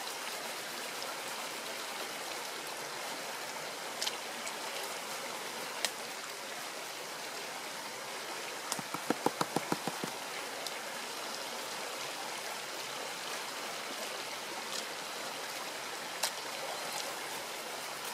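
Shallow stream water running and trickling steadily while a plastic gold pan of water and gravel is swirled over it. A quick run of about eight small taps a little after nine seconds in, with a few single clicks elsewhere.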